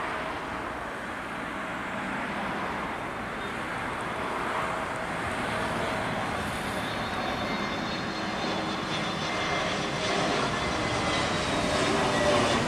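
Airbus A320 airliner on final approach with its landing gear down, passing low overhead: a steady jet-engine rush with faint whining tones that grows louder toward the end.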